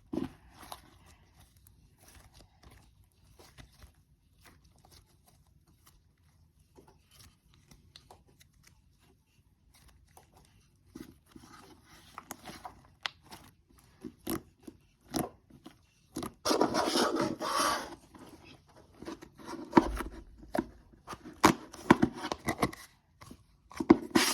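Hands squishing, stretching and poking slime: scattered small sticky clicks and crackles. They grow busier in the second half, with a dense run of crackling about two-thirds of the way through.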